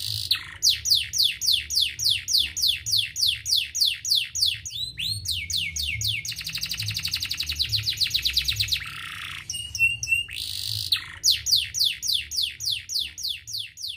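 Domestic canary singing a continuous song of quick falling notes, about five a second. Around the middle the notes change to a much faster, denser trill for a few seconds, then the falling-note series returns.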